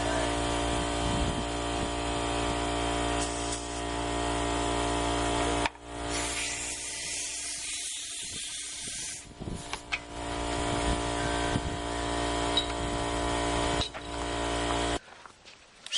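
A small motor running with a steady hum, cutting out briefly twice. Near the middle there are a few seconds of spray-like hiss, and the motor stops about a second before the end.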